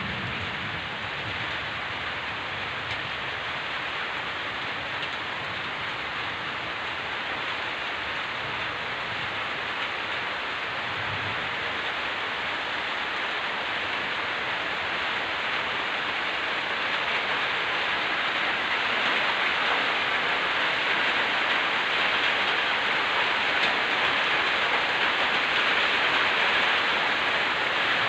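Heavy rain falling as a steady hiss that slowly grows louder over the second half, with a brief low rumble about eleven seconds in.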